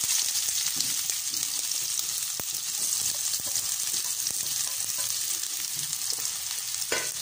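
Sliced onions frying in hot coconut oil in a kadai, just tipped in: a steady sizzling hiss with a few faint pops.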